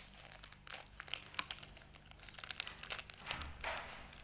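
Plastic candy wrapper crinkling with irregular small clicks as it is snipped open with scissors and the gummy is pulled out, with a busier rustle a little over three seconds in.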